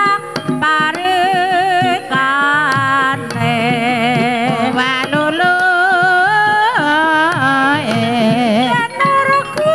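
Banyumasan gamelan music: a sinden, a female Javanese singer, sings long ornamented lines with wide vibrato and gliding pitch over the ensemble, with short percussive strokes keeping the beat.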